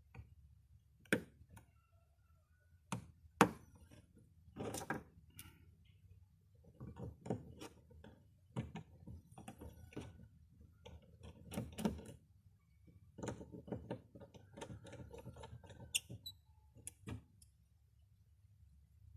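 Quiet, irregular clicks, taps and short scraping sounds of a smartphone and small tools being handled, with a few sharper clicks standing out.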